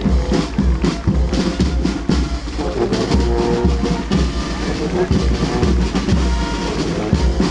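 Marching music with a bass drum and snare drum keeping the beat, over the chatter of a crowd.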